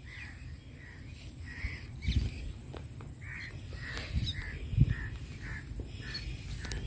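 Crows cawing: a run of short, repeated calls, with a few low thumps in between.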